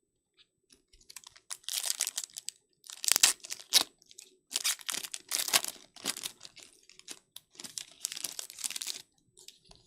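Foil trading-card pack wrapper crinkling and tearing as a pack is opened and cards are handled, in a run of irregular rustles.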